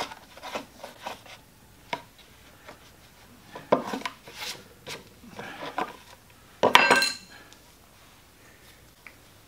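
Short rubbing and scraping strokes as a leather belt is worked over a wooden board, then a metal hand tool is put down with a clatter and brief ringing about seven seconds in.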